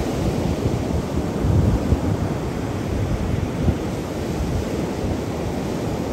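Ocean surf breaking and washing up a sandy beach, with wind buffeting the microphone into a steady low rumble.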